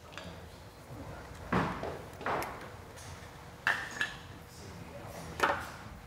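A handful of light clicks and knocks from plastic parts being handled: a Vespa GTS rear turn signal lens assembly, pulled off the scooter, and the body panels around it. One click carries a short ringing ping.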